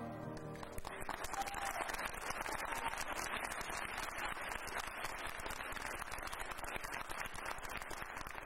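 A children's choir's last sung note dies away, then an audience claps in steady, dense applause.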